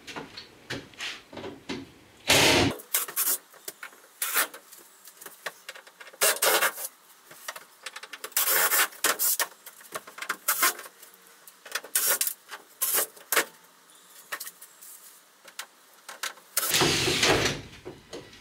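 Cordless drill-driver run in short bursts, backing screws out of a plywood wall lining panel, with knocks and rattles between. Two longer, louder runs come a little after 2 s and near the end.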